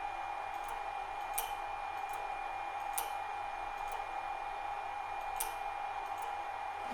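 Airblast solenoid valve clicking as it is switched on and off, a few sharp clicks a second or two apart, with no air blowing through because the air supply upstream is shut off. A steady high hum runs underneath.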